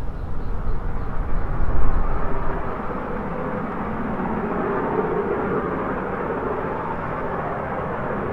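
Distant rumble of the LNER A4 Pacific 60009 Union of South Africa working up Sapperton Bank, heard before it comes into view, swelling from about three seconds in. Wind buffets the microphone in the first two seconds.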